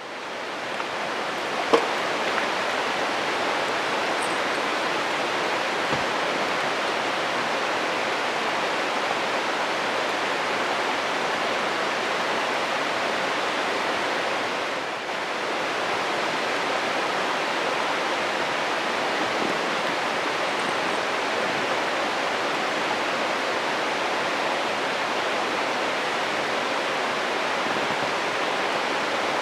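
Steady rushing of a river stream flowing over rocks, with one sharp pop about two seconds in.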